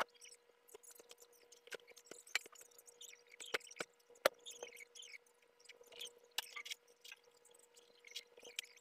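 Black ink pen drawing on paper: irregular short scratches and light ticks as the nib makes short strokes and lifts off the sheet, over a faint steady hum.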